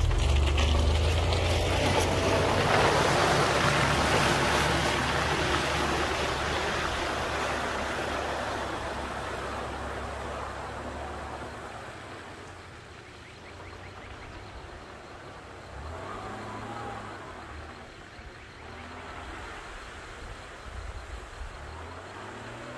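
Nissan pickup truck driving through a muddy puddle: its engine runs under load while the tyres splash and spray water and mud. The sound is loud at first and fades over about ten seconds as the truck moves away, leaving a fainter engine sound.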